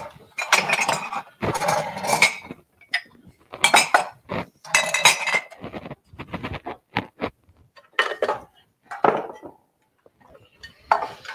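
Ceramic mugs and dishes clinking and clattering in an irregular run as they are shifted about in a kitchen cupboard. Near the end a coffee maker starts up with a steady noise.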